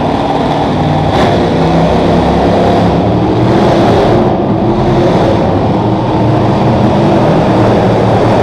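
Monster truck engines running loudly and revving, their pitch rising and falling.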